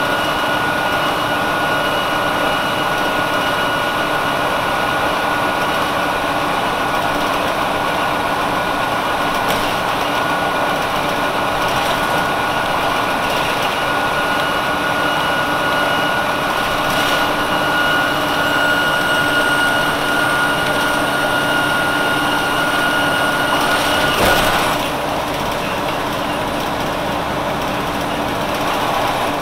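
A Nova Bus RTS-06 transit bus's Detroit Diesel Series 50 inline-four diesel running, heard from inside the bus, with a steady high-pitched whine over the engine. About 24 seconds in there is a sharp knock, the whine cuts off and the sound drops a little.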